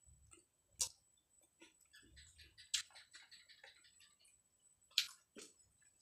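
Young jengkol beans being peeled by hand: the dark skins crack and snap as they split. Three sharp snaps come about two seconds apart, with small crackling ticks between them.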